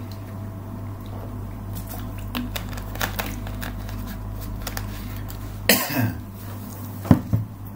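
A man coughs after drinking water: one louder cough a little past halfway, then two short ones near the end. Faint small clicks come before it, over a steady low hum.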